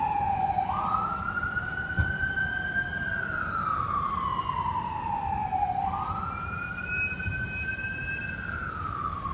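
Ambulance electronic siren in wail mode: a tone that climbs quickly, holds high, then slowly falls, twice over, over the low rumble of street traffic. It grows slightly fainter toward the end.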